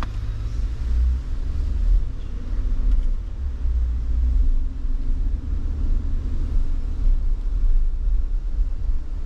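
A truck driving, heard from inside the cab: a steady low engine and road rumble with a faint hum above it.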